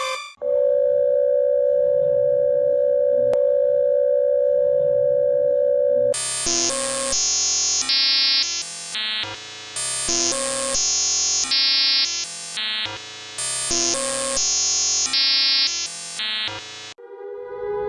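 Synthesized emergency-alert sounds from a fictional EAS alarm. A single steady electronic tone holds for about six seconds, then gives way to a quick melody of stepping synth notes and chords, and near the end a new siren-like tone begins.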